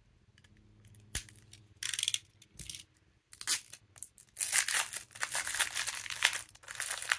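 Plastic wrapping on a roll of washi tape being torn and crinkled as it is peeled off by hand. A click and a few short rustles come first, then continuous crinkling from about halfway through.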